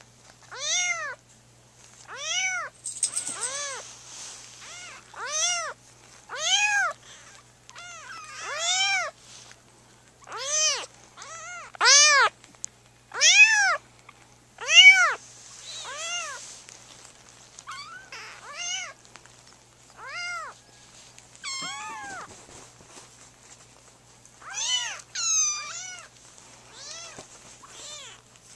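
Young kittens mewing over and over, short high-pitched calls about once a second, each rising and then falling in pitch.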